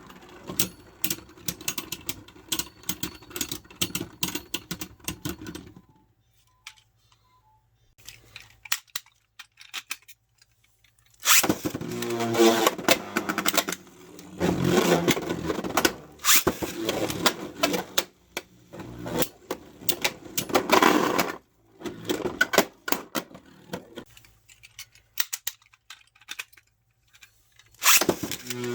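Beyblade Burst spinning tops battling in a plastic stadium. For the first six seconds there is rapid clicking and clattering of the tops striking each other over a steady whir. From about eleven seconds in, several loud rattling bursts of launches and clashes follow, with quieter gaps between them.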